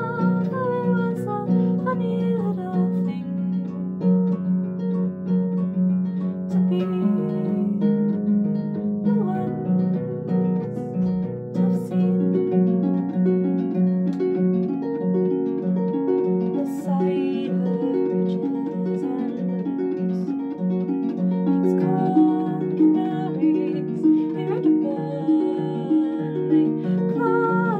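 Concert pedal harp played with both hands: plucked notes and chords over a repeating low bass figure, with evenly spaced plucked accents near the end. A woman's voice sings along over the harp at moments, most clearly near the start.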